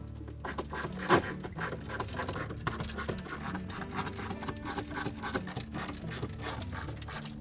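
Torx driver turning the number 20 screws into a dishwasher's plastic pump cover: a quick, uneven run of clicks and scratches, with one sharper click about a second in. Soft background music plays underneath.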